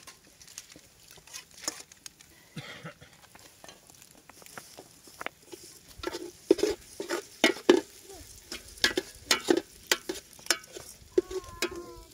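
A metal spoon stirring food in a stainless steel pot, scraping and clinking against the pot in irregular strokes, sparse at first and quicker and louder from about halfway through.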